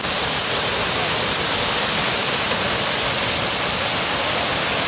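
Waterfall of muddy flash-flood rainwater pouring down a rock cliff: a steady rushing hiss of falling water.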